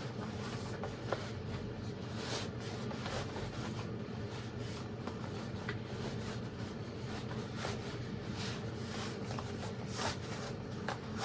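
Irregular rustling and brushing of a thin martial-arts gi's fabric as it is handled and put on, over a low steady hum.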